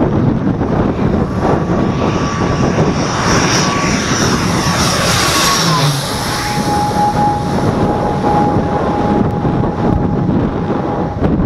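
ATR 72-600 turboprop airliner flying low overhead on landing approach, its two Pratt & Whitney PW127M propeller engines running loud with a steady whine that drops in pitch about six seconds in as it passes over.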